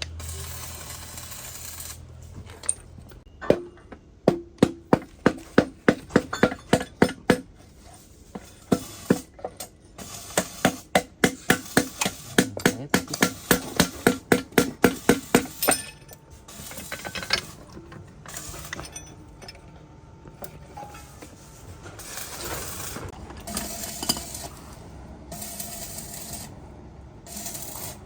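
Metal struck repeatedly with a hammer, in two runs of about two to three ringing blows a second. This is followed by irregular scraping and clinking of metal parts.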